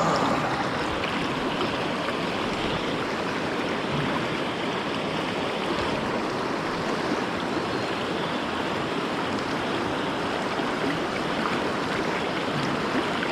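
Fast river water rushing steadily; the river is running high after typhoon rain.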